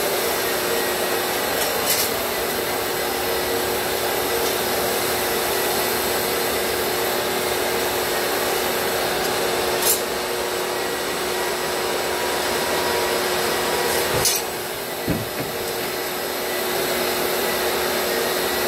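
Ridgid shop vacuum running steadily, pulling dust through a hose from a drywall sander that scrapes across a popcorn ceiling. A few sharp knocks come about 2, 10 and 14 seconds in, and the noise dips briefly just after the last one.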